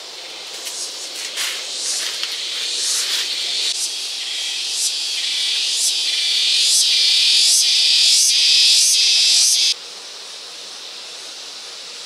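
Insect buzzing, high and pulsing, that grows steadily louder and then cuts off suddenly near the end.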